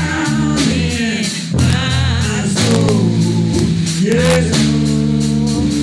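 Live gospel band: a man singing into a microphone over electric bass and a drum kit keeping a steady beat.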